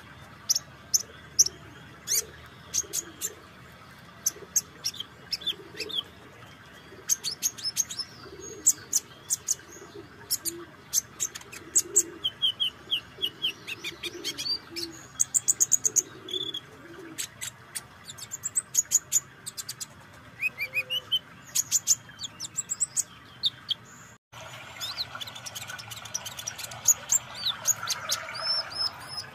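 Male kolibri ninja (purple-throated sunbird) singing: a long run of sharp, high chirps broken by short rapid trills, with a brief break about 24 seconds in.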